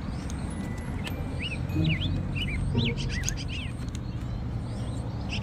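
A bird chirping, a quick run of short rising and falling calls from about a second in until about three and a half seconds in, over a steady low outdoor rumble. A few light clicks of plastic toy parts being handled.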